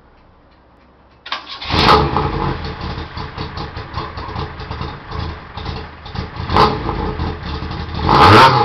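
Fiat 128's four-cylinder engine, fitted with a performance camshaft, starts a little over a second in and rumbles a little as it idles. It gets a short blip of the throttle and then a longer rev near the end that drops back down.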